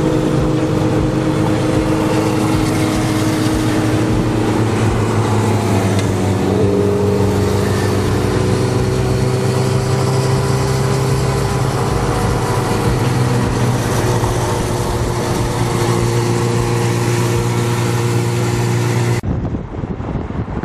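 Motorcycle engines drone steadily as they cruise alongside a car at highway speed, over road and wind rush through the open window, their pitch drifting slowly with speed. About a second and a half before the end the sound cuts abruptly to a quieter rushing noise.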